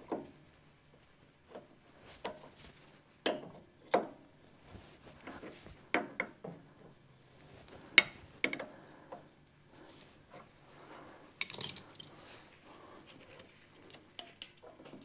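Metal hand tools and engine parts clinking and knocking at irregular intervals, with some rubbing and scraping, while a diesel injector nozzle is worked out of a two-cylinder engine's cylinder head. The sharpest knock comes about eight seconds in.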